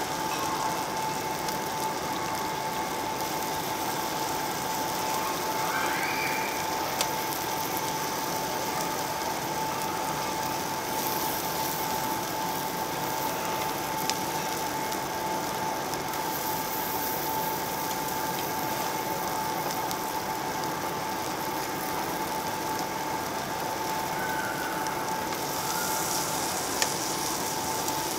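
Samgyeopsal (pork belly) sizzling and crackling on a round slotted steel tabletop barbecue grill, over a steady high tone. Metal tongs click sharply against the grill three times.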